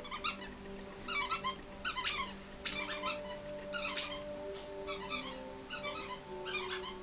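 A puppy giving high-pitched squeals in short bursts, about one cluster a second, over soft background music.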